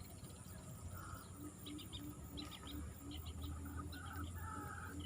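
Birds calling: scattered short high chirps over a steady series of short, low repeated notes, with a faint low hum underneath.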